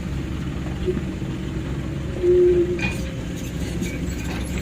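Heavy diesel engine running steadily at work on the excavator or dump truck, with a short high squeal of metal about two seconds in and a few sharp metallic clicks in the second half.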